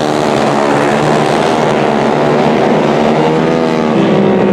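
Racing quad (ATV) engines running hard on a dirt flat track, their pitch rising and falling as the throttle opens and closes.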